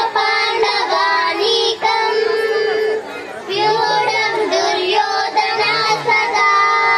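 A young girl singing a song into a handheld microphone, in a high voice with long, wavering held notes and a short break about three seconds in.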